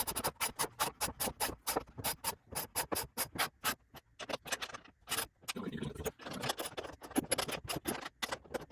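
Ratchet wrench clicking as a nut on a hanger bolt is turned to drive the bolt into a wooden chair leg. The clicks come quickly and evenly, about five a second, for the first half, then slow down and turn uneven, with some scraping.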